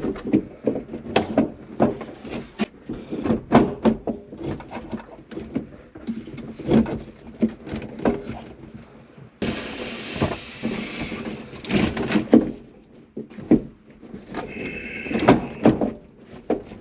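Repeated knocks, clunks and rattles of a kei truck's plastic dashboard and its parts being handled and shifted in the cab, with a few seconds of hissing, scraping noise near the middle.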